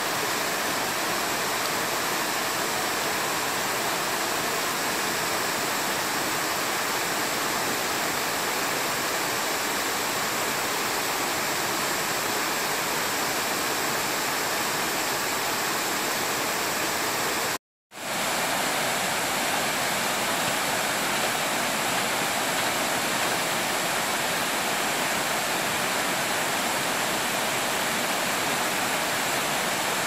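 Waterfall sheeting down a broad sloping rock slab into a pool: a steady rush of falling water. The sound cuts out for a split second a little past halfway, then resumes unchanged.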